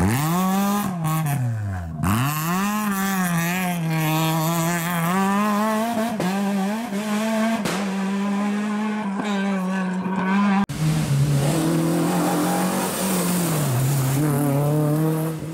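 Renault Clio rally car's engine at high revs, accelerating hard through the gears, its pitch climbing and dropping at each change. About ten seconds in it cuts abruptly to a second rally car's engine revving hard as it passes close.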